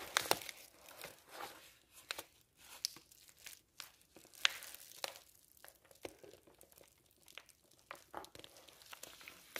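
Brown paper mailer envelope being handled and pulled at by hand: irregular crinkling and crackling of the stiff paper, in scattered short bursts, as it resists being opened.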